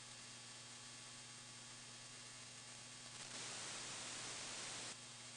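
Software-defined radio audio output: steady static hiss from a HackRF receiver tuned into wide digital signals near 2142 MHz, over a low steady hum. The hiss grows louder and brighter for about a second and a half past the middle, then drops back.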